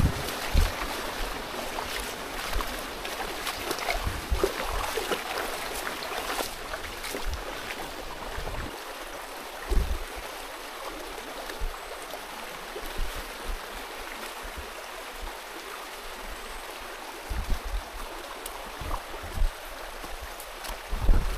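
Shallow rocky stream running, with splashing footsteps wading through the water for the first several seconds. Scattered low thumps on the microphone, more of them near the end.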